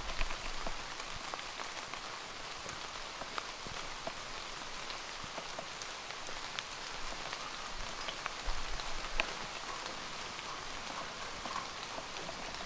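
Steady rain falling on rainforest foliage, with scattered individual drops ticking sharply. A brief low rumble comes about two thirds of the way through.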